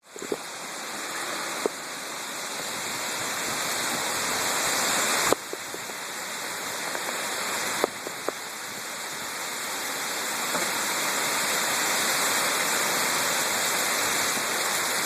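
Wind storm: a steady rushing hiss of wind that builds gradually, with a few sharp clicks or knocks, one about two seconds in and others around the middle.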